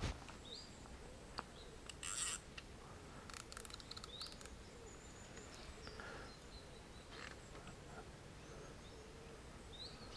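Faint outdoor ambience with scattered short, rising bird chirps. A brief rustle about two seconds in and a few faint clicks shortly after.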